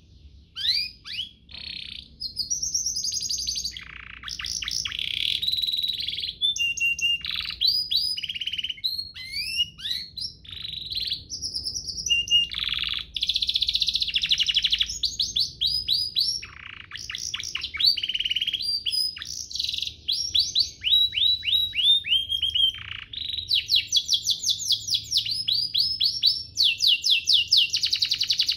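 Domestic canary singing a long, unbroken song. It moves between fast rolling trills of rapidly repeated notes, quick sweeping notes and short steady whistles. The fastest, densest rolls come near the end.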